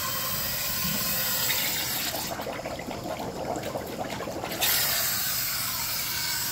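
Air at 10 psi hissing out of the water ends of a Crusader 6.0 engine oil cooler, then bubbling in a tub of water when the cooler is dunked about two seconds in, before the hiss comes back suddenly as it is lifted out. The air leaking into the water side shows the cooler is internally cracked.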